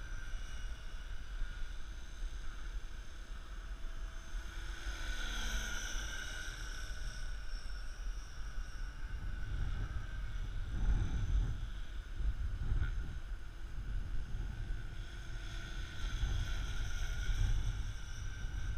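Radio-controlled model helicopter flying: a steady high whine from its motor and rotors that shifts in pitch as it manoeuvres a few seconds in. Wind rumbles on the microphone, swelling in gusts midway and near the end.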